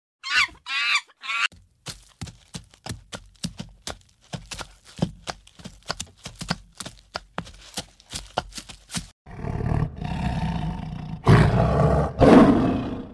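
A tiger roaring and growling, in two loud surges near the end. It is preceded by brief high-pitched squealing calls and then a long run of sharp clicks and knocks.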